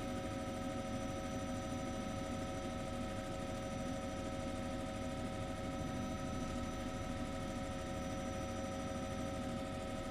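Helicopter running steadily: a low rumble with several steady whining tones over it.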